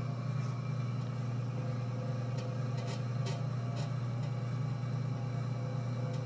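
Electric pottery wheel running with a steady low hum as it spins a wet clay cylinder, with a few faint short ticks around the middle.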